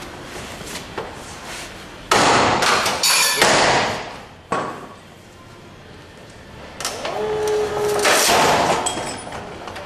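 A handheld breaching tool forced into the lock side of a wooden door, the door and frame straining and cracking under it in two long loud stretches, about two seconds in and again about seven seconds in. A short squeal comes early in the second stretch, and there is a sharp knock in between.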